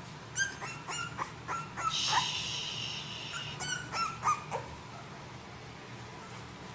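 Young bulldog puppies giving a quick run of short, high yips and squeals as they scuffle together, with one longer, higher squeal about two seconds in.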